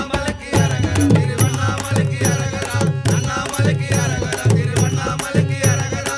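Instrumental passage of a Tamil Shiva devotional song: a steady drum beat with hand percussion and rattles under melodic instruments.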